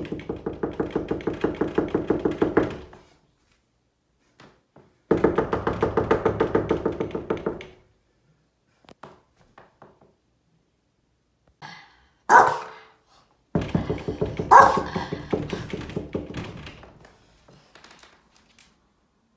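A dog paws rapidly at a closed wooden interior door, about seven or eight thumping strokes a second. This comes in three bouts of a few seconds each, each starting loud and tailing off, with a short, sharper sound about twelve seconds in.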